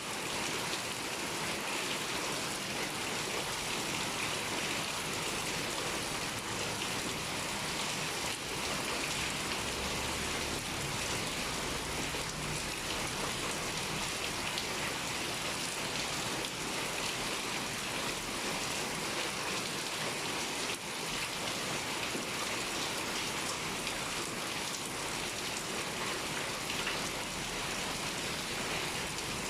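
Heavy rain pouring steadily, an even hiss of countless drops hitting surfaces.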